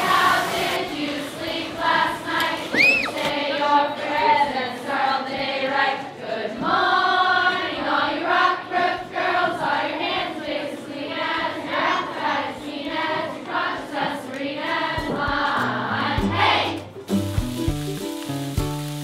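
A group of girls singing a song together, with a brief high rising squeal about three seconds in. Near the end the singing stops and gives way to a different, lower-pitched passage of music.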